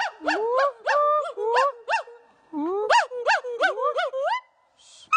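Gibbon calling: a fast run of hooting notes, each swooping up and then down in pitch, about three a second. There is a brief break about two seconds in, and the run ends in a long rising note shortly before the end.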